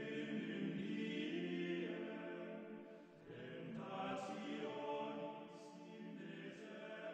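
Voices singing a slow, chant-like sacred piece as background music, with long held notes; a new phrase begins about three seconds in.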